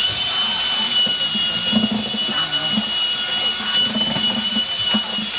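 A machine motor switches on abruptly and runs steadily, giving a constant high whine over a hiss.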